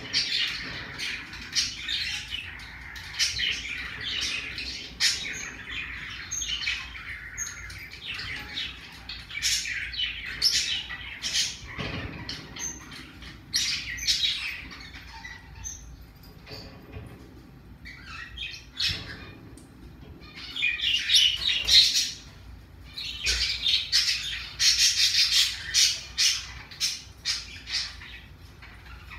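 Pacific blue parrotlet chirping and squawking, mixed with many short sharp clicks, with louder clusters near the start and again in the last third.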